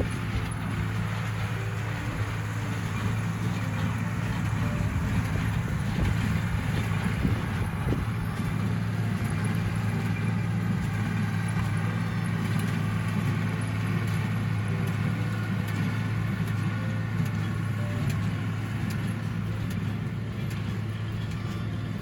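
Tractor engine running steadily with an even, low drone.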